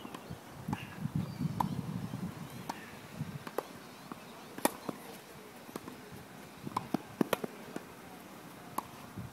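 Tennis rally: sharp strikes of the ball off the racquets and ball bounces, single cracks a second or more apart, with the loudest about halfway through and again near the end.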